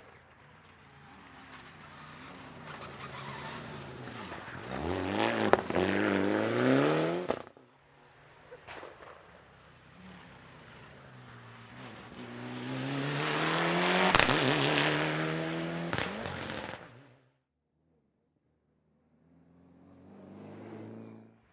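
Mitsubishi Lancer Evolution VI rally car's turbocharged four-cylinder engine revving hard as it passes close by, pitch climbing and dropping with gear changes, with several sharp bangs. Two loud passes, then a brief dead-silent cut and the engine rising again near the end.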